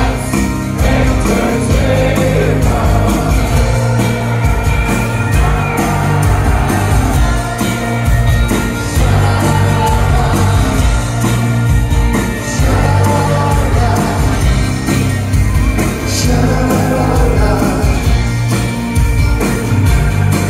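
Live rock band playing loudly with a male lead vocal, acoustic guitar and drums, a steady beat under the singing. Recorded from among the audience in a large hall.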